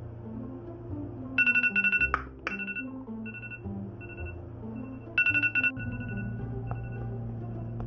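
iPhone alarm ringing: two bouts of rapid high beeps, about a second and a half in and again about five seconds in, with fainter beeps between. Background music with a slow bass line plays under it.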